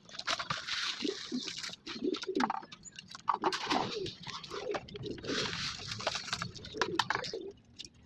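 Fancy pigeons cooing, low coos repeated over and over, with scattered clicks and rustling.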